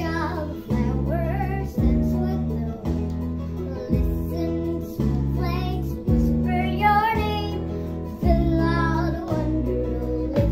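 A young girl singing a slow, wavering melody over musical accompaniment whose chords change about once a second.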